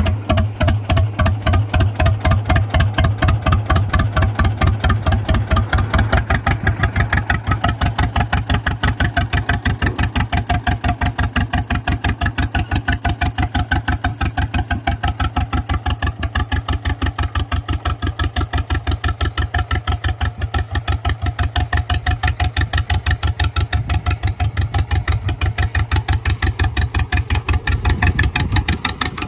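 A 1954 John Deere 40 crawler dozer's two-cylinder engine idling, with an even, slow firing beat of about four to five pulses a second.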